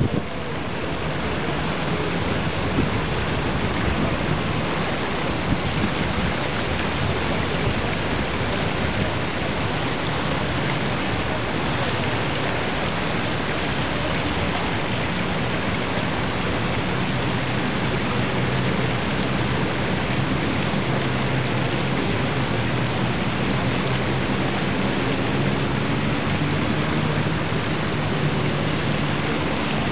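Steady, even rushing noise like rain or falling water, unbroken throughout, with a faint low hum in the second half.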